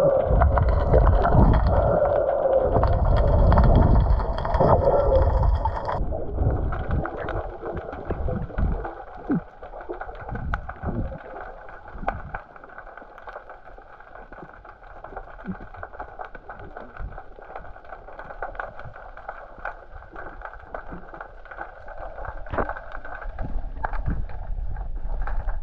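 Muffled underwater noise picked up by an action camera held underwater: a loud rushing for about the first six seconds, then, after an abrupt change, a quieter hiss dotted with many small crackles and ticks, growing louder again near the end.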